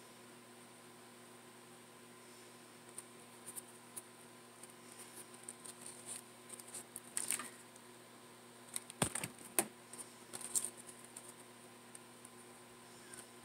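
Soft rustling and small clicks of fingers handling and pressing satin ribbon petals, with a few sharper clicks about nine and ten seconds in.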